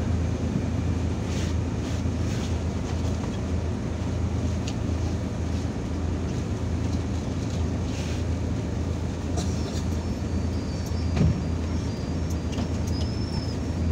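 Irisbus Citelis 12 m city bus standing with its engine idling, a steady low hum heard from inside the cabin, with a brief knock about eleven seconds in.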